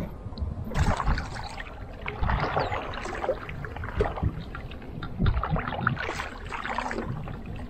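Double-bladed paddle strokes: blades dipping into the river on alternate sides of a canoe, making a string of splashes and drips.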